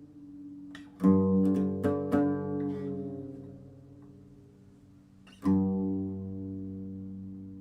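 Background music on plucked guitar: a few picked notes, then a chord struck about five seconds in that rings on and slowly fades.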